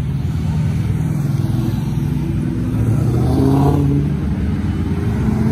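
Several cars driving past on a race track, their engines running with a steady low drone. About three seconds in, one engine's note rises as it accelerates.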